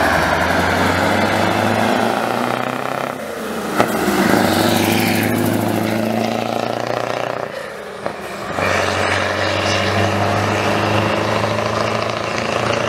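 Scania 142H's 14-litre V8 running through an open, straight-through exhaust as the truck drives past under acceleration. The loud engine note drops away briefly twice, around three and eight seconds in, as it changes gear, and there is one sharp click near four seconds.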